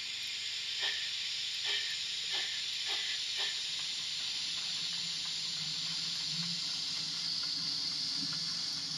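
Sound module of a model Saxon IV K narrow-gauge steam locomotive (99 1599-2) playing a steady steam hiss, with five chuffs coming closer together as the locomotive starts off. A low running hum sets in underneath as it moves away.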